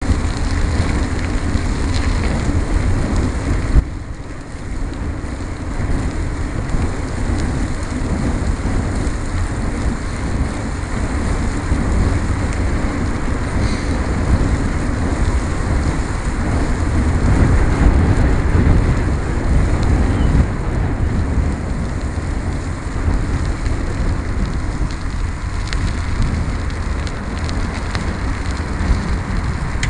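Steady wind noise buffeting the microphone, with tyre rumble from a bicycle riding along a muddy gravel-and-asphalt bike path. It dips briefly about four seconds in.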